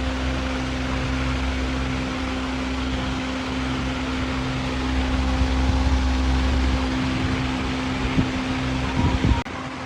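A steady mechanical hum with a hiss, like a fan or motor running, that cuts off abruptly near the end and gives way to a quieter hum.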